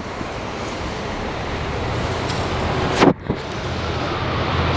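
Double-decker bus riding through city streets, heard from the top deck: a steady engine and road rumble. About three seconds in there is a short loud clunk with a brief drop in the sound, and near the end a slowly falling whine starts.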